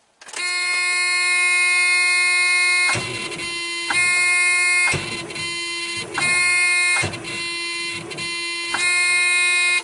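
Truck's in-cab warning buzzer sounding a steady tone. Three times the starter is hit and a rough cranking noise comes in while the buzzer weakens: the batteries are too low, with the voltage dropping too far under the starter's load.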